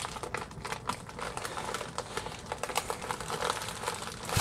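White paper padded mailer rustling and crinkling as it is handled by hand, a steady run of small irregular crackles and clicks.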